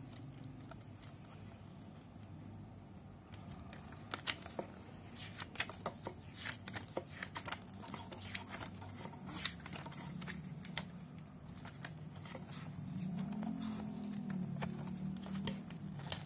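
Pages of a paper instruction booklet being handled and turned: a run of short, crisp paper clicks and rustles, thicker from about four seconds in.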